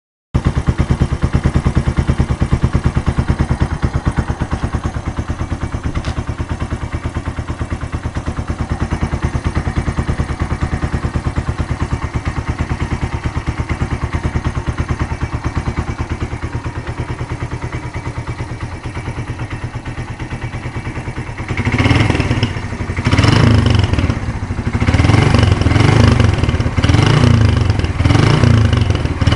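Suzuki Intruder 125 single-cylinder four-stroke engine running through a cut-down Roncar aftermarket exhaust, with a Titan 150 air filter fitted. It idles steadily with a rapid pulsing beat, then about three-quarters of the way through it is revved in a series of throttle blips.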